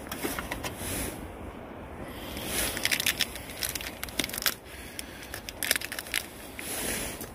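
Plastic food packaging crackling and crinkling as it is handled and torn open, in two clusters of sharp crackles: one about two and a half seconds in lasting two seconds, and a shorter one near six seconds.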